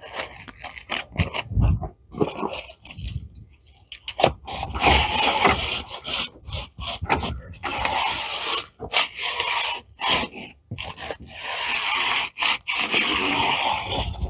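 A clear window panel being pressed by hand into a framed upper door on a Yamaha RMAX4 side-by-side, rubbing and scraping against the frame. A few light knocks come first, then from about four seconds in the rubbing comes in stretches of a second or two with short breaks.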